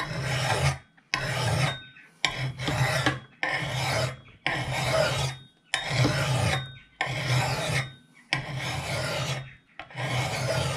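Coarse bastard-cut file rasping across the steel edge of a double-bit axe in steady push strokes, about one a second, with short gaps between them. The file is cutting metal, taking the edge down to form a new bevel.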